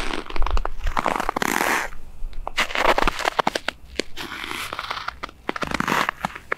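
Footsteps of boots crunching in crusted snow on a packed, tyre-rutted track, about five steps at a walking pace. Each step is a crackling crunch with sharp little snaps as the crust breaks.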